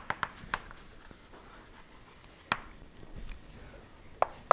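Chalk tapping and scraping on a blackboard as equations are written: a quick run of sharp taps near the start, single taps about halfway, and two more near the end.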